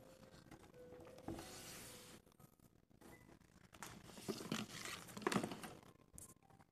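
Handling noise: a paper brochure rustles about a second in, then a randoseru school backpack is moved and its shoulder straps handled, giving a run of rustles and soft knocks, loudest a little after five seconds.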